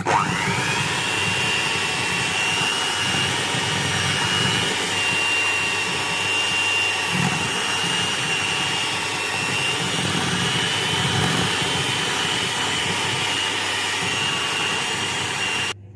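Electric mixer creaming butter and sugar: the motor spins up with a quickly rising whine, runs at a steady speed, then cuts off suddenly near the end.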